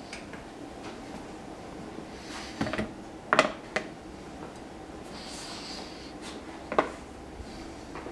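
A few short clinks and knocks of metal tools and engine parts being handled, the loudest about three and a half seconds in, over a faint steady hum.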